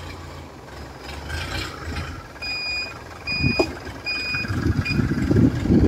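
Four short, evenly spaced electronic beeps, like a reversing alarm. About halfway through, the barge's stern engine starts and runs with an uneven firing that grows louder.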